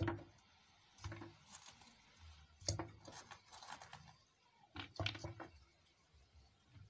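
Calcium carbide fizzing faintly in water inside a plastic bottle as it gives off acetylene gas, with a few sharp clicks about a second, three seconds and five seconds in.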